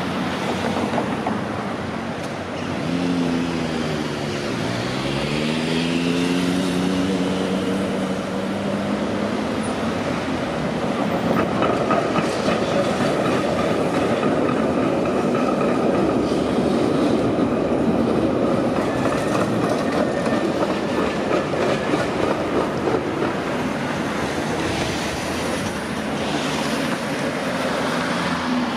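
Tram V3A-93 CH-PPC No. 4014 running on its rails. A few seconds in, a whine from its traction equipment dips in pitch and climbs again, then settles into a steady rumble of wheels on rail with a faint high tone.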